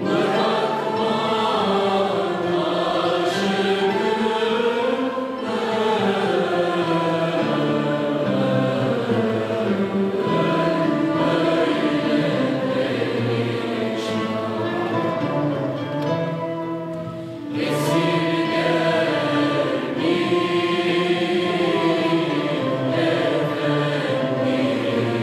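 Mixed choir singing a Turkish classical şarkı in the kürdilihicâzkâr makam, accompanied by a traditional Turkish art-music ensemble of bowed strings, plucked lutes, flute and small drums. The sung line pauses briefly twice, about five seconds in and again past the middle, between phrases.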